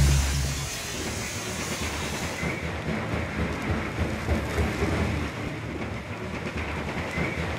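Old wooden-framed drive machinery of a historic ironworks running, with a dense, irregular clattering rumble over a hiss.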